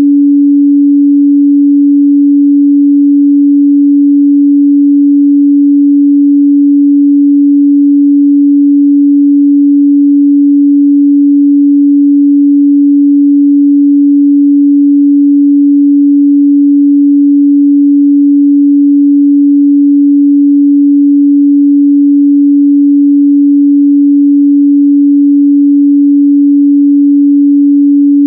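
A pure 285 Hz sine-wave test tone, held steady and loud at one pitch without a break.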